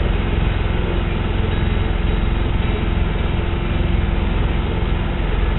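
A sailboat's auxiliary inboard engine running steadily under way, a low pulsing drone with a steady hum.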